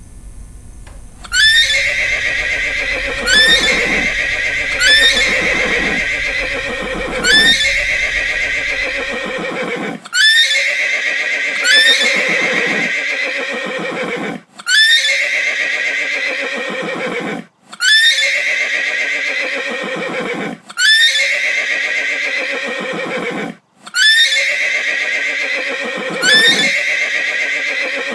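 A horse whinnying again and again, the same neigh repeated back to back every couple of seconds, starting about a second in.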